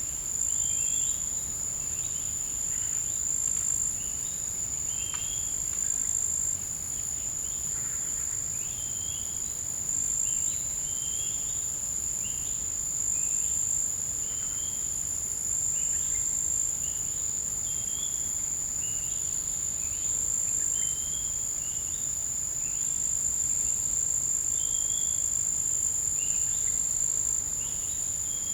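Forest insect chorus: a continuous, high-pitched insect trill, with many short chirping notes a little lower in pitch scattered through it, a few each second.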